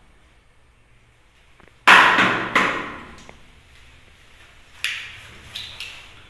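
Raw eggs knocked against the rim of a non-stick cooking pot: two sharp knocks a little over half a second apart, each with a short ringing tail, then lighter clicks near the end as an eggshell is cracked and pulled apart.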